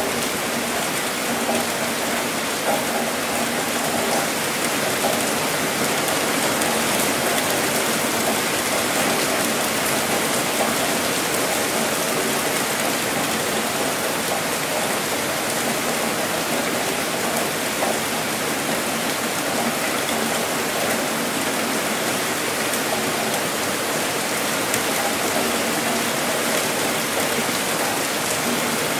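Heavy rain falling steadily, a dense, even hiss of drops with no thunder.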